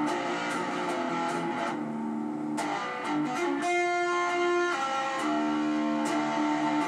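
Guitar played solo, picked notes and chords changing quickly, with one chord left to ring about four seconds in.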